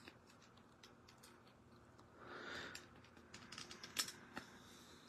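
Faint handling of a plastic action figure and its glider: scattered small plastic clicks and a soft rustle, with a run of sharper clicks about four seconds in as the glider's straps are pushed to click into place.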